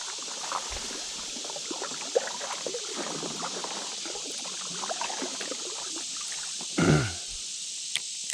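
Water trickling and lapping against a kayak drifting on a fast, flooded river, over a steady high hiss of insects. About seven seconds in there is a short voice-like sound that falls in pitch.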